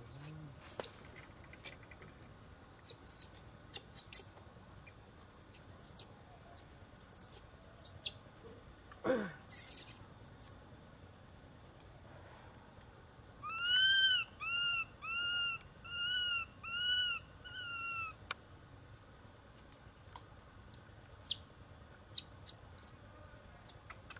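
Infant macaque giving short, very high squeaking chirps in irregular clusters, with one long call that falls steeply in pitch about nine seconds in. About halfway through comes a run of six arched, whistled calls, evenly spaced over four seconds.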